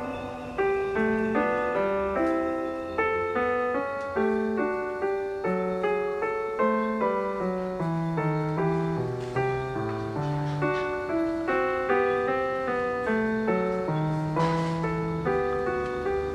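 Background piano music: a steady flow of notes, each struck and fading, at an even unhurried pace.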